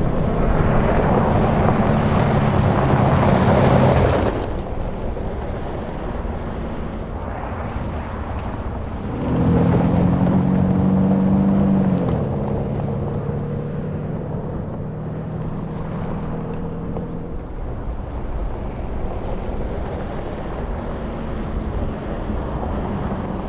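Audi SQ7 TDI's V8 diesel engine driving under load, with a broad rush of noise over the first four seconds before it eases off. About nine seconds in it pulls harder again, drops in pitch around twelve seconds, then runs on steadily at lighter load.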